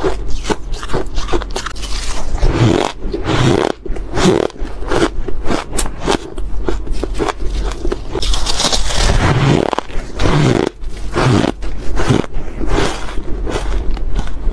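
Soft, crunchy frosty ice being chewed close to the microphone: rapid, dense crunches one after another. About eight seconds in, a chunk of the ice is crushed and broken apart in the fingers, adding a grainy crumbling sound.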